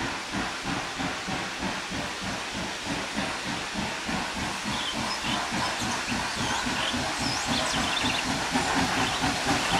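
Narrow-gauge steam locomotive working uphill out of sight, its exhaust beating in a quick, even chuff over a steady hiss of steam, growing slightly louder toward the end.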